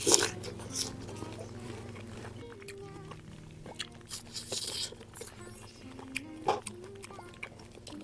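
Crunchy bites into fresh fruit and chewing, over soft background music. The loudest bite comes right at the start, another just under a second in, with a longer stretch of crunching about halfway through and one more bite later on.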